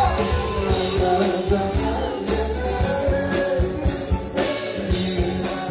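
A live pop band playing with a male lead singer singing over a steady beat.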